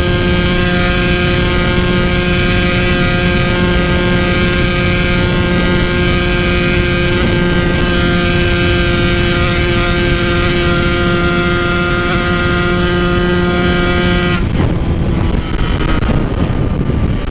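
Yamaha RX-King 135cc two-stroke single-cylinder engine held flat out at steady high revs near top speed, with wind rushing past. About fourteen seconds in, the throttle closes and the engine note drops away.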